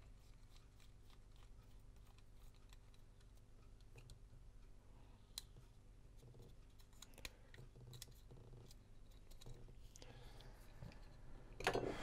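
Near silence with faint, scattered clicks and taps of small camcorder plastic parts and tools being handled during disassembly, and a brief louder sound near the end.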